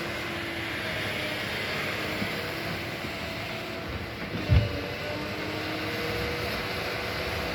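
Excavator's diesel engine running steadily while it works, with a single brief low thump about halfway through.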